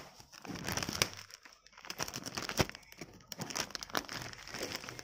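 A mail parcel being unwrapped by hand: irregular crinkling and rustling of packaging, with a few sharp clicks.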